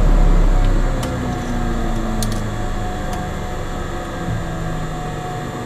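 Cessna Grand Caravan's Pratt & Whitney PT6A turboprop winding down after shutdown, its tones slowly falling in pitch and the level dropping about a second in. A few faint clicks sound over it.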